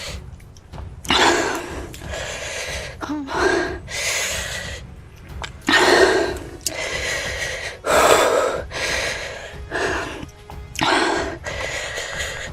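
A person gasping and breathing hard, in a run of short noisy breaths about once a second: a pained reaction to the burn of an extremely hot chili chip.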